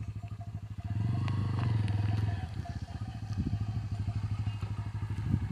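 Bajaj Pulsar N160's single-cylinder engine running at low revs with an even, pulsing exhaust beat as the motorcycle creeps over the edge of a steep dirt bank. The engine note swells for about a second, starting about a second in, then settles back.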